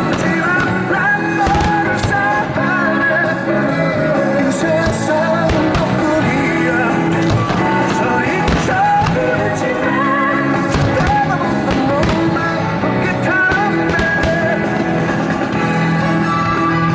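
Loud music with a singing voice over a steady backing, with sharp irregular cracks now and then.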